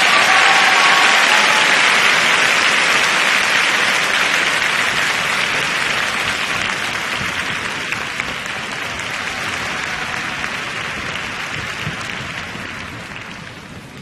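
Arena audience applauding, the clapping gradually dying away.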